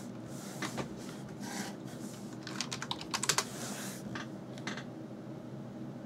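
Computer keyboard keys clicking as a login password is typed, in scattered keystrokes with a quick run of them about three seconds in.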